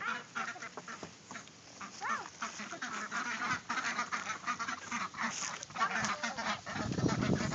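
Ducks calling: a quick chatter of short calls, busiest in the middle.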